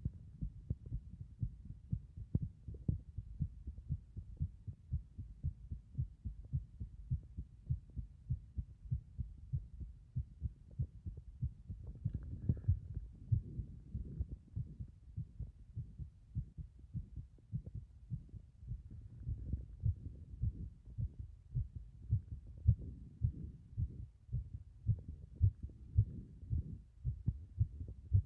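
A human heartbeat heard close against the chest: a steady run of low paired lub-dub thumps.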